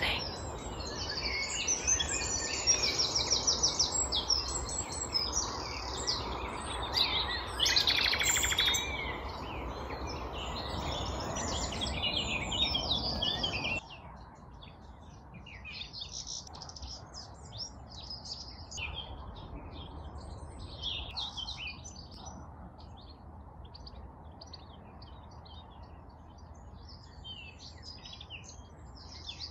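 Several songbirds singing at once, with rapid trills and repeated chirping phrases. About halfway through, the sound cuts suddenly to quieter, sparser birdsong.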